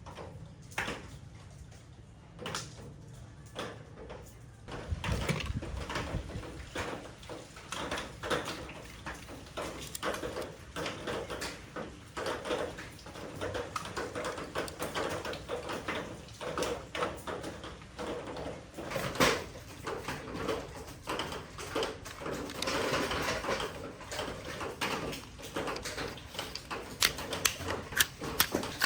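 Plastic Transformers action figures and their packaging being handled, giving an irregular run of small clicks and knocks, with rustling twice, about five seconds in and again near the end.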